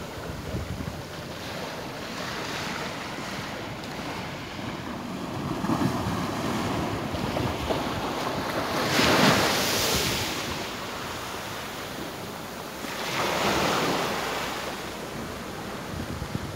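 Atlantic surf breaking and washing up a sandy beach as a steady wash, with two louder waves rising and falling, one about halfway through and one a few seconds later. Wind buffets the microphone with a low rumble.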